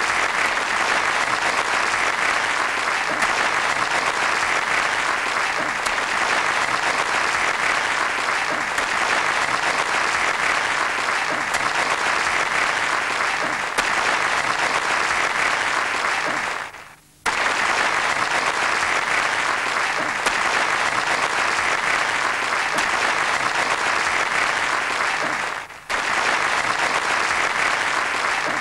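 Large audience applauding steadily, a dense even clatter of many hands. It cuts out briefly twice, once for about half a second past the middle and again shortly before the end.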